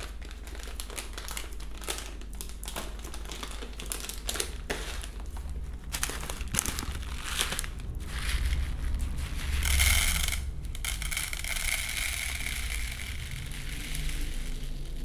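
Crinkling and crackling of a printed plastic bird-feed bag being opened and handled, then a steadier hiss from about two-thirds of the way in as dry feed is poured from the bag into a plastic tub.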